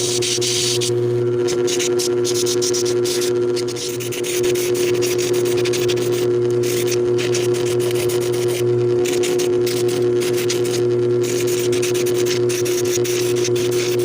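Electric shoe-finishing (sanding) machine running with a steady motor hum, and a rasping hiss that comes and goes as a shoe sole is ground against the abrasive wheel.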